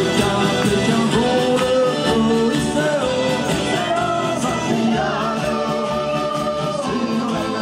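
Pop/rock band playing a song: a sung melody over guitar and full band accompaniment.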